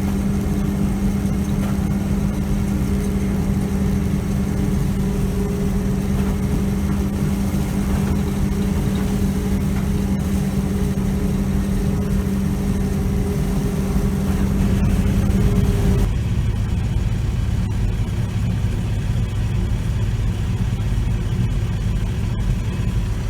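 John Deere 3300 combine running while shelling corn: a steady engine and machinery drone with a constant low hum. About 16 seconds in, the sound changes abruptly: the hum drops out and a lower, duller engine rumble carries on.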